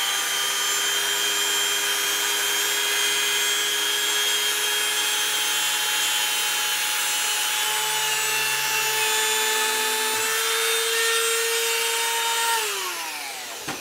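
Cheap Dremel-style rotary tool running at speed, driving a 3D-printed turbine compressor through a rubber-band belt: a steady high whine with several tones that shifts a little partway through, then winds down in pitch near the end. The rubber-band belt breaks as the bag's pressure builds.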